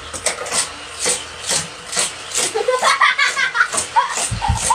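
A Hot Wheels toy race-track set running: a rasping clatter that repeats about twice a second.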